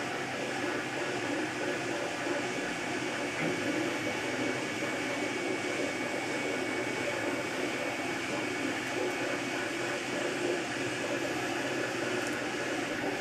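MakerBot Replicator 2 3D printer running a print: its stepper motors whir and whine steadily as the extruder travels back and forth laying down PLA, over the constant noise of its fans.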